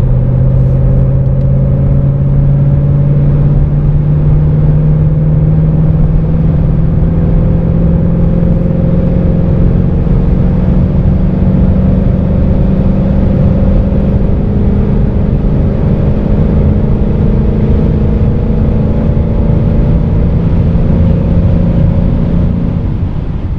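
A 2016 Ford Mustang GT's 5.0-litre V8 pulling at full throttle in a high gear, heard from inside the cabin. Its note rises slowly and steadily as the revs climb from about 2,000 to 3,400 rpm, and it fades out at the very end.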